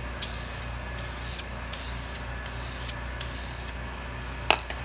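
Aerosol spray paint can spraying a light first coat in five short bursts of hiss, about one every 0.7 s. A single sharp click comes near the end.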